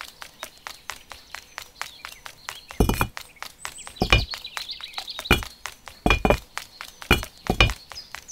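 Dubbed sound effects for small toy figures: a quick, even run of light ticks like tiny footsteps, with birds chirping behind. From about three seconds in come six or so heavier thunks, each with a short ring.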